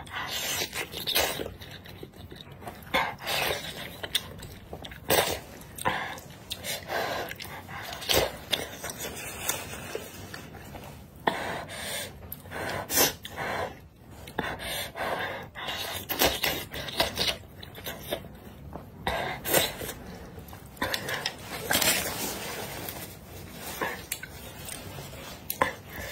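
Close-up eating sounds of a person slurping wide noodles from a spicy broth and chewing. The sharp sucking slurps and noisy breaths come irregularly, often several a second.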